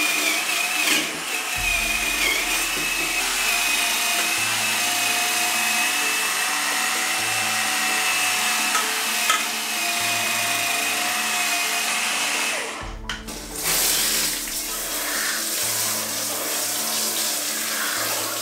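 Dremel VERSA cordless power scrubber running with a steady whine as its blue non-scratch pad scrubs a wet stainless-steel pot. About 13 seconds in the motor stops and a hiss of running water follows.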